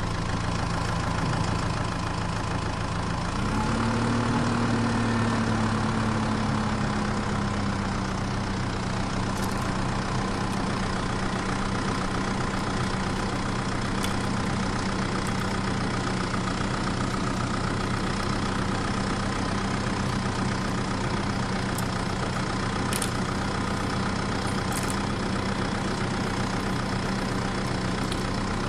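Tractor engine idling steadily, revving up a little about three seconds in and easing back down over the next few seconds. A few faint clicks of small plastic pieces being set down sit under it.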